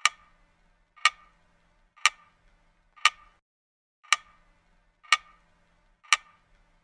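Ticking sound effect: a sharp tick once a second, seven in all, each with a short ringing tail, like a clock.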